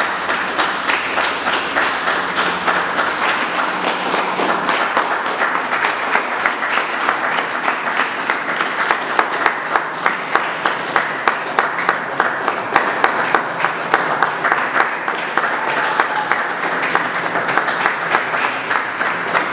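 Small audience applauding steadily, with one close pair of hands clapping in regular louder claps through the middle.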